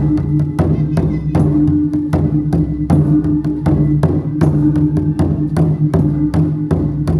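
Chinese gong-and-drum (luogu) percussion: sharp strikes in a steady, even rhythm of about three a second over a sustained low ringing.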